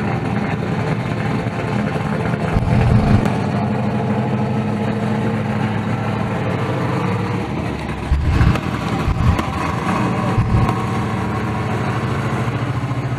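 Drag race car engine idling steadily, with a few louder low surges about three seconds in and again between about eight and ten seconds.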